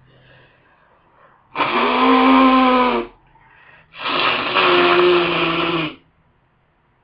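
Two loud honking nose blows from a nose congested with a head cold, each a buzzy, pitched blast lasting one and a half to two seconds, the second starting about a second after the first ends.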